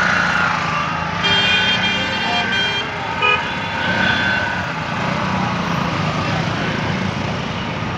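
Dense city street traffic with engines running, and a vehicle horn honking in a quick run of short toots from about one to three seconds in.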